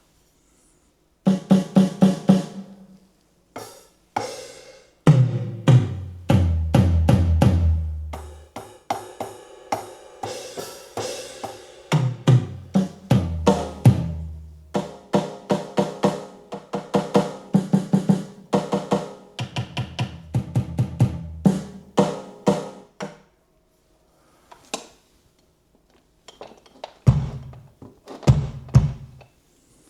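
Electronic drum kit played through a Bose S1 Pro+ powered PA speaker: snare, kick and cymbal hits with tom fills that step down in pitch. The playing stops for a few seconds near the end, then a few last low drum hits.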